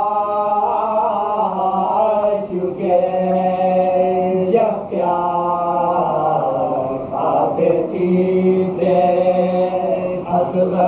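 Several men chanting a marsiya together in soz-khwani style, the Urdu elegiac melodic recitation for Muharram. Their voices hold long, level notes in phrases two to three seconds long, with brief pauses between.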